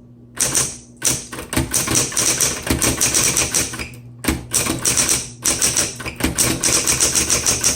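Smith Corona Coronet Automatic 10 electric typewriter typing: a rapid run of sharp keystrokes, about seven a second, over the steady hum of its running motor, with a brief pause about four seconds in.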